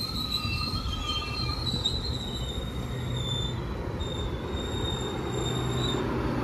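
GO Transit commuter train pulling into the station, its wheels squealing in several thin high tones that come and go over a steady low rumble.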